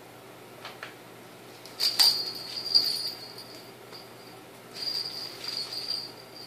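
A small jingle bell rattling in two spells, about two seconds in and again later, as a kitten plays in and climbs out of a plastic laundry basket, with a few light knocks of the plastic basket.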